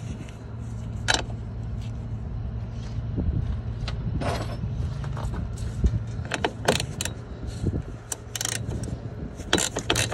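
Metal hand tools clicking and clinking: a 13 mm socket wrench working on the fasteners of a truck's air filter box, with a short scrape about four seconds in and a quick run of clicks near the end. A steady low hum runs underneath.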